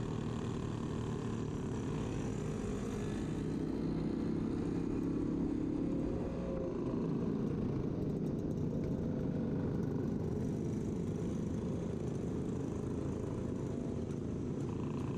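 Motorcycle engine running steadily while riding along, mixed with wind noise on the handlebar-mounted microphone and other motorcycles close by.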